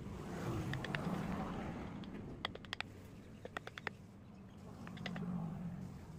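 Hand-pushed carving gouge cutting into a wooden panel, making short clusters of crisp clicks as the blade severs the wood fibres. A low rumble swells twice in the background.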